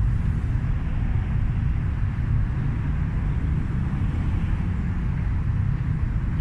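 Kawasaki KLX250's single-cylinder four-stroke engine running steadily at low revs, a constant low rumble with no revving.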